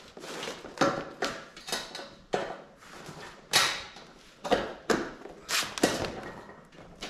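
Irregular knocks, thuds and rustling as a deflated inflatable pontoon is handled and worked onto a water bike's metal struts. There are about ten sharp knocks at uneven intervals, and the loudest comes a little past halfway.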